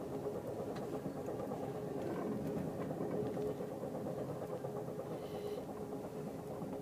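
Steady rumble of a moving Amtrak passenger train heard from inside the car, with a faint steady hum and a few light clicks.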